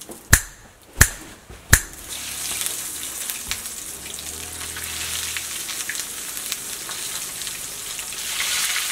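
Cornflake-crumbed flathead fillets frying in hot oil in a pan: a steady sizzle that builds from about two seconds in as more fillets go into the oil. Three sharp clicks come in the first two seconds.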